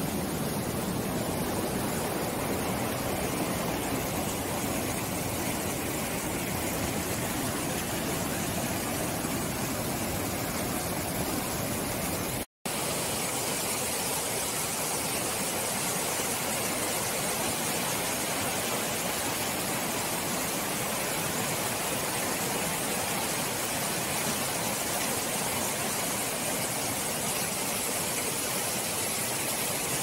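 Stream water rushing steadily, a continuous hiss with no distinct splashes. It breaks off for an instant about twelve seconds in and comes back brighter and hissier.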